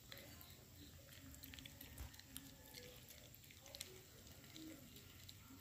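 Faint, irregular clicking and smacking of a dog eating crumbled omelette from a stainless-steel bowl, with a couple of slightly louder clicks about two seconds in and near four seconds.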